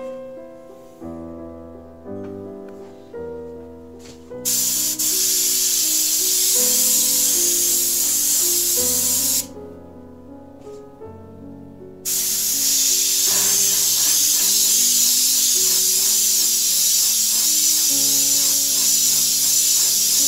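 Iwata Eclipse HP-CS dual-action airbrush spraying paint: a steady hiss of air in two long bursts, one about five seconds long starting about four seconds in, the other starting about twelve seconds in. Piano music plays underneath.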